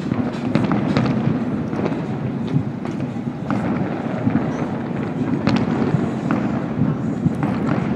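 Many fireworks going off far away across a city: a continuous rumble of overlapping booms, with sharper pops and crackles scattered throughout.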